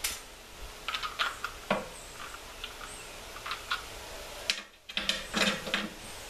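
Scattered light clicks and taps of small parts being handled, including the plastic power-steering fluid reservoir, with a brief near-silent gap a little past the middle.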